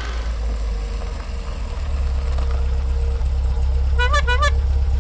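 Steady low rumble of a vehicle engine running, with a faint steady hum over it. About four seconds in comes a short, high, warbling call of three quick notes.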